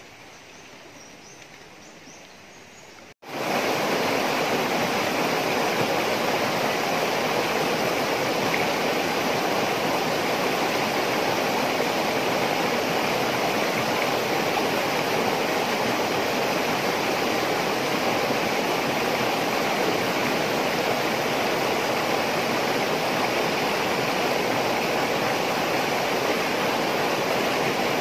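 Steady rush of flowing river water, starting abruptly about three seconds in after a quieter stretch.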